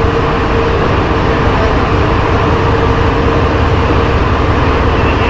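Santiago Metro NS-93 rubber-tyred train running at speed through a tunnel, heard from inside the car: a loud, steady running rumble with a steady hum.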